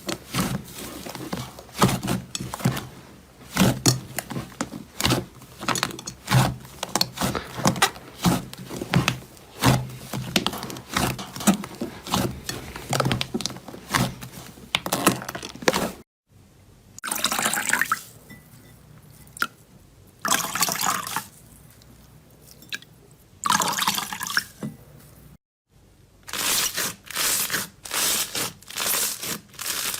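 Slime being squished and stretched: dense wet sticky clicks and pops for about the first half. After a brief break come a few separate second-long squelches, and after another break, quick repeated squishes.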